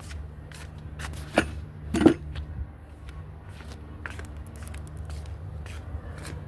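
Two sharp knocks, about a second and a half and two seconds in, the second the louder, then light scattered clicks and scrapes of things being handled, over a steady low hum.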